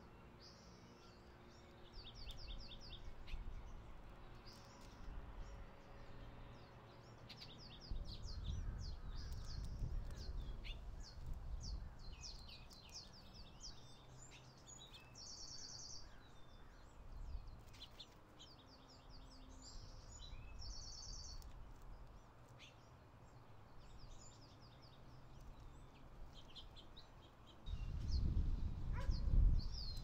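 Small songbirds chirping over and over, with a couple of quick high trills in the middle, over a low outdoor rumble that swells twice.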